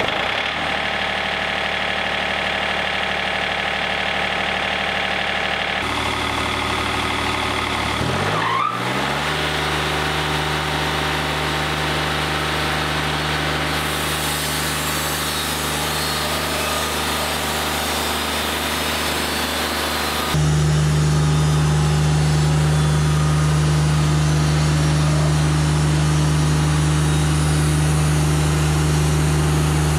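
Wood-Mizer LT40 Wide sawmill's engine running just after start-up. It rises in pitch about eight seconds in and settles at a steady higher speed, then runs louder from about twenty seconds in.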